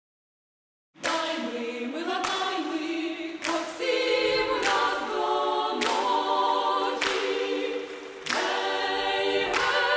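Dead silence for about the first second, then a choir sings sustained chords. A sharp accent comes roughly every second and a quarter.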